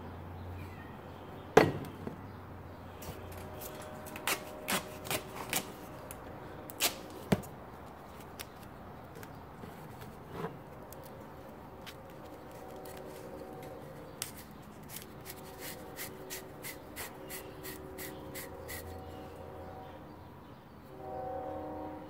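Cut glass wine bottle halves clinking and knocking together, with a sharp knock about a second and a half in and a cluster of clinks a few seconds later. Then duct tape is wrapped around the join and smoothed, giving a run of light, evenly spaced clicks.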